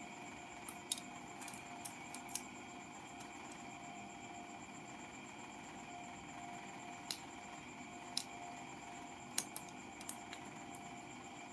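Scattered sharp clicks and taps, about ten, clustered near the start and again in the second half, over a steady electrical hum with a few thin high whining tones.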